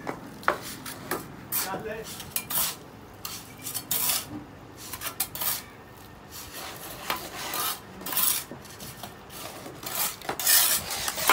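Steel trowel scraping and scooping gritty cement-and-gravel mix into a metal tile mold: a run of irregular rasping strokes, with now and then a clink of metal on metal.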